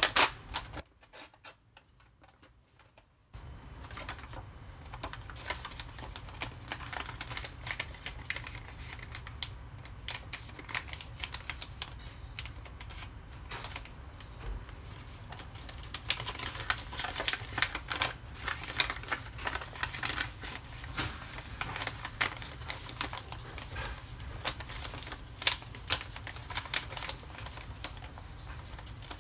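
Origami paper being folded and creased by hand: a run of quick crackling rustles and sharp crease clicks. It drops to near silence briefly about a second in, then carries on.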